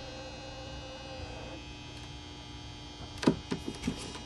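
Steady low electrical hum, with a faint tone that stops about a second and a half in. A few light knocks come close together about three seconds in.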